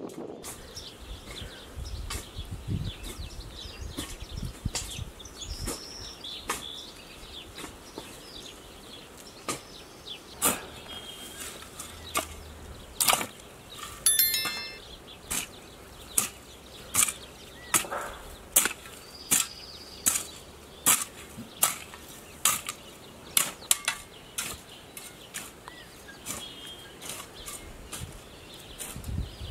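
An axe chopping wood on a stump block: a long run of sharp chops, about one a second, starting about a third of the way in, with faint bird calls.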